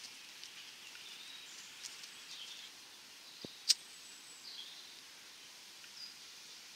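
A single sharp click about three and a half seconds in, the strike of a disposable lighter, over faint bird chirps.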